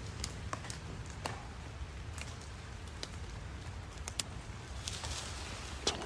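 Scattered light taps, a handful of sharp ticks at irregular intervals, over the steady low rush of a river at night. A soft hiss comes in near the end.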